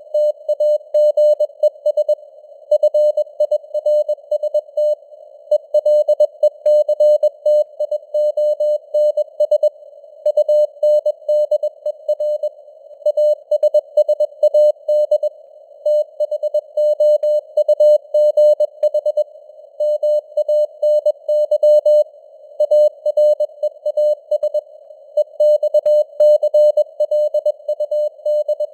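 Morse code at 21 words per minute: a single steady mid-pitched tone keyed on and off in short and long elements, grouped into characters and words with short gaps. It sits over a faint band of simulated radio static.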